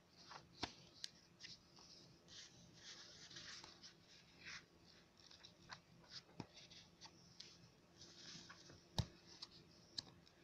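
Faint rustling of paper pages being thumbed through in a softcover comic book, with a few sharp page flicks, two about a second in and two near the end.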